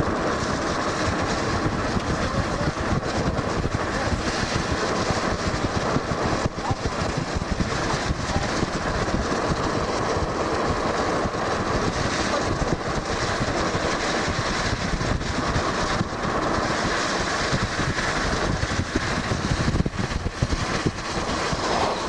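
Vehicle on the move: a steady rumble of road and engine noise with frequent small knocks and rattles.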